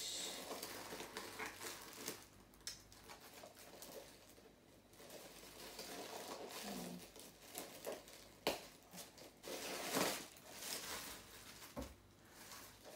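Plastic wrapping on a new handbag crinkling and rustling as it is handled and pulled off, in irregular bursts with a couple of sharper, louder crackles past the middle.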